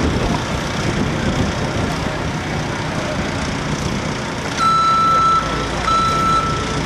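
Diesel engine of a telehandler at work, joined about two-thirds through by its reversing alarm: two long, steady beeps about a second apart.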